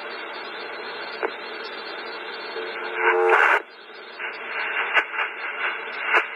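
Police scanner radio static: an open channel hissing steadily, with a short tone and a louder burst of static about three seconds in, then irregular crackle and clicks.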